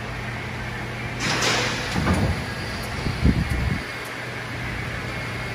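Hunter Road Force wheel balancer spinning a truck tire and wheel through a runout measurement, with a steady low motor hum. A rushing swish comes a little over a second in, followed by two low thuds about a second apart.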